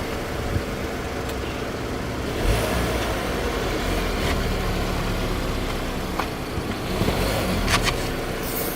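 Car engine running at low speed, with several short sharp cracks and crunches scattered through it, typical of objects being crushed under the tyres.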